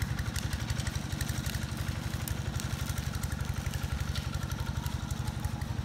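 An engine running steadily at idle, a low even beat of rapid pulses that does not change.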